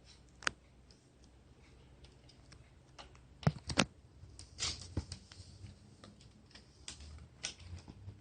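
Scattered small clicks and taps of a Phillips screwdriver and fingers working at a laptop screen's mounting screws and plastic bezel: a sharp click about half a second in, two loud clicks about three and a half seconds in, then a brief rustle and a few lighter ticks.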